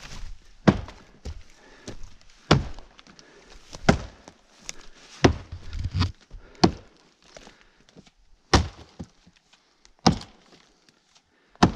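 An axe chopping into a downed log: about eight heavy strikes, one every second and a half or so, with lighter knocks between them.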